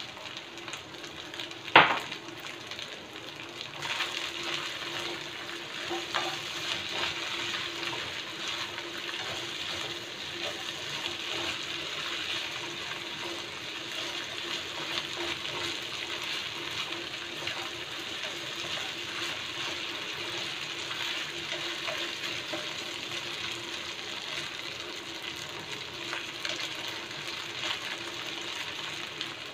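Fried rice sizzling in a nonstick wok as it is stir-fried and tossed with a spatula, the sizzle growing louder about four seconds in, over a steady low hum. A single sharp knock a little under two seconds in.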